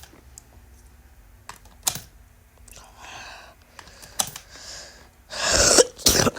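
Scattered sharp taps and clicks, with a louder rustling burst about five and a half seconds in.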